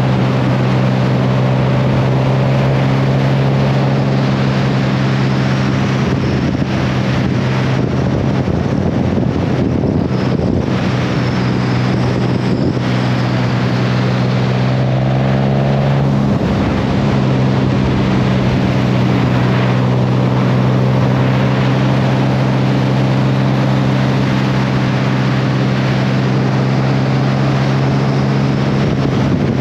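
Motorcycle engine running at a steady cruising speed, with wind rushing over the microphone. The engine note breaks briefly about sixteen seconds in, then settles back to the same pitch.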